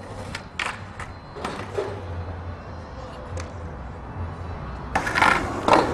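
Skateboard wheels rolling on concrete with a steady low rumble, broken by a few sharp clacks of the board, and a louder burst of clacks and landing impacts near the end.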